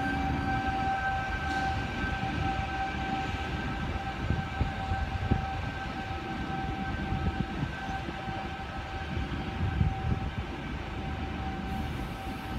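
Electric double-deck test train pulling out and rolling away: a low rumble of wheels on rail with scattered clunks over the track, under a steady high whine.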